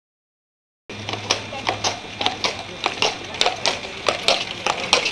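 A shod Shire horse walking on a paved street pulling a carriage, its hooves clopping sharply about three times a second, starting suddenly about a second in.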